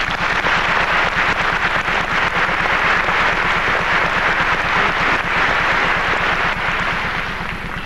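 Theatre audience applauding, a dense clatter of clapping that thins near the end as the orchestra comes back in. A low steady hum from the recording runs underneath.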